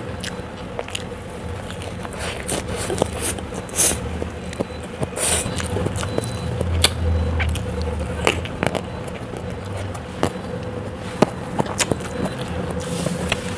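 Close-miked eating: chewing with frequent sharp mouth clicks and smacks, and a few louder, hissy crunching bites, over a steady faint hum.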